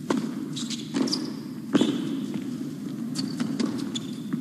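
Tennis rally on an indoor hard court: sharp racket strikes and ball bounces about a second apart, the loudest near the two-second mark. Short shoe squeaks on the court and fainter hits follow, over a steady low arena hum.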